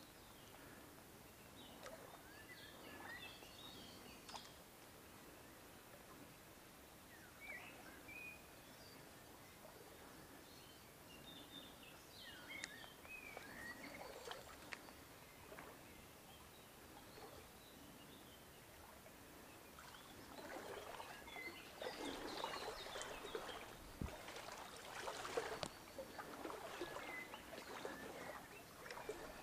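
Small birds chirping faintly in scattered short calls. About two-thirds of the way in, irregular rustling and crackling starts and grows louder, with one dull low knock among it.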